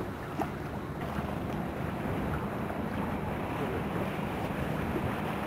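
Wind buffeting the microphone over open water, with water washing and a low steady hum underneath.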